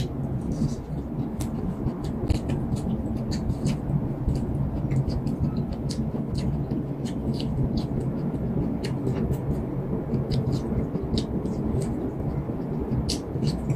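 Close-up chewing of corn kernels bitten off the cob, many short crisp mouth clicks, over a steady low rumble.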